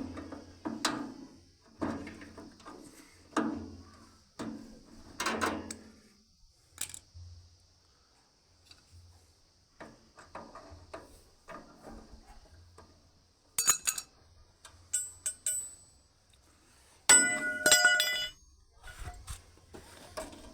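Metal parts and tools of a chaff cutter being handled: a series of knocks and clinks, then two spells of ringing metal clangs, a short one about two-thirds of the way through and a louder run of several clangs near the end.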